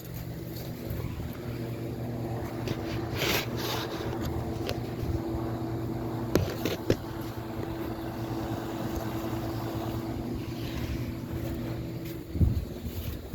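Outdoor heat-pump / air-conditioner condenser unit running: a steady hum from the compressor and fan. A few sharp clicks about six to seven seconds in, and wind buffets the microphone now and then.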